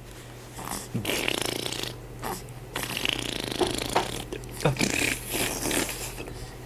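A two-month-old baby's breathy grunts and a few short squeaks, in two longer stretches over the first four seconds, with a couple of brief squeaks falling in pitch a little later.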